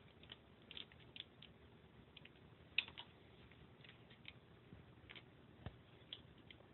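Faint, scattered keystrokes on a computer keyboard, a few separate key clicks spread over several seconds, one a little louder about three seconds in.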